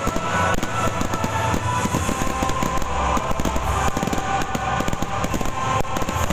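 Fireworks bursting in rapid succession: a dense run of sharp bangs and pops one after another, over loud background music.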